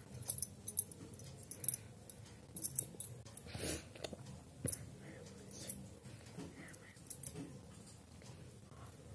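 Handling noise as hands adjust a sari and hair close to the phone: irregular light, jingly clinks and small knocks, with a brief rustle of cloth a little over halfway through.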